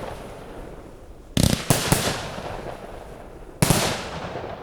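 Fireworks going off: a quick cluster of three sharp bangs about a second and a half in, then one more loud bang near the end. Each burst is followed by a fading, echoing rumble.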